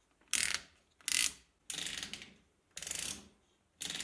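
Handlebar throttle lever worked back and forth by hand, pulling its cable, about once a second. Each stroke gives a short gritty run of rapid clicks.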